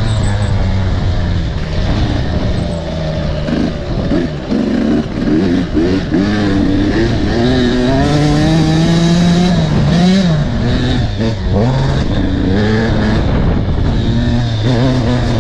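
300 cc two-stroke enduro motorcycle engine being ridden hard around a dirt track, revving up and dropping back with the throttle and gear changes; its pitch climbs steadily for a few seconds midway, then falls off sharply. The hard running is to blow out oily two-stroke buildup.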